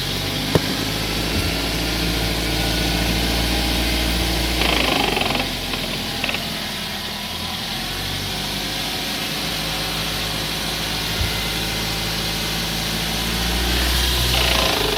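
Nissan Wingroad on the move with a steady low hum, its RE4F03B four-speed automatic transmission making a ratchet-like foreign noise that the owner hears when coasting at 20 to 60 km/h. Two louder swells of noise come about five seconds in and near the end.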